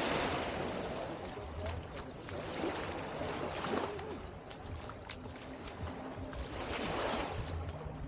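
Small waves washing onto a sandy beach. The wash swells near the start and again about seven seconds in.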